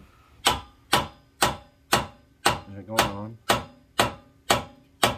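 Steady hammer blows on steel, about two a second, each with a short metallic ring. They are knocking a seized pressure-washer pump's remains off the crankshaft of a Honda GX390 engine.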